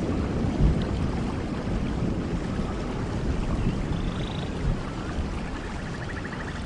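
Steady rain with a low rumble of thunder dying away. Short pulsed trills from small creatures come in about four seconds in and again near the end.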